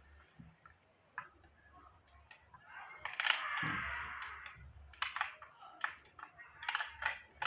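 Small scattered clicks and knocks of hands handling a mini hair dryer's plastic body and cord, with a short rustle about three seconds in.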